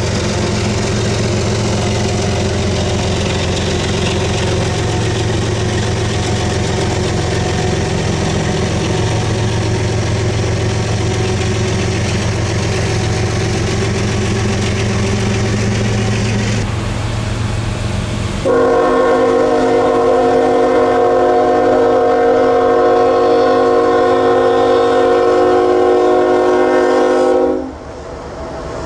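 A diesel locomotive running past with a steady low engine rumble, then a locomotive air horn blowing one long multi-note chord for about nine seconds, cutting off near the end.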